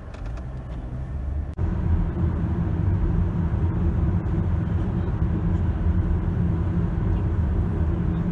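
Road and engine noise heard inside a car's cabin: a quieter low hum in slow city traffic, then after an abrupt cut about a second and a half in, a louder steady low rumble at highway speed.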